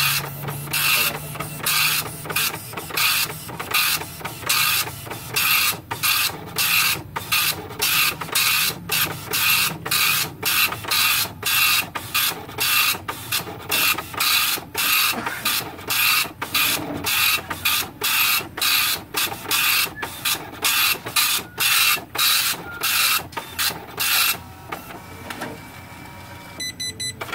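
Epson LX-300+ dot-matrix printer printing a page of text, the print head running across in short line-by-line passes about two a second. The passes stop a few seconds before the end, followed by a brief burst of rapid ticking.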